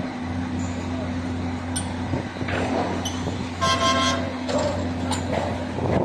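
Concrete transit mixer truck's diesel engine running steadily with a low drone. A horn sounds once for about half a second a little past halfway.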